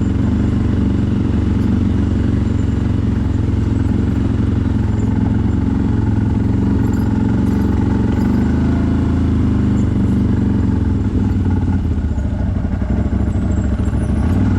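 CFMoto 1000 ATV's V-twin engine running while riding, its engine speed rising and falling a little.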